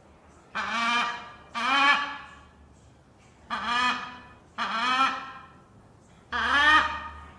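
Parrot squawking: five loud, harsh calls, each starting sharply and trailing off within a second, coming roughly in pairs about a second apart.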